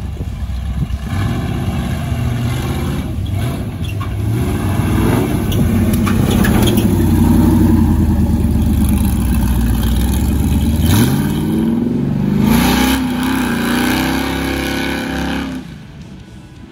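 Off-road race pickup truck engines revving hard under full throttle, the pitch climbing and falling as the throttle is worked. There is a sharp climb about eleven seconds in, and the engine sound falls away near the end.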